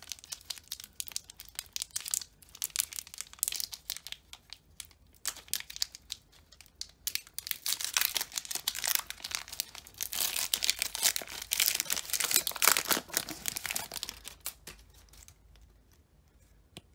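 Foil Pokémon booster pack wrapper being torn open and crinkled in the hands: a run of dense crackling that grows thickest in the middle and dies away near the end.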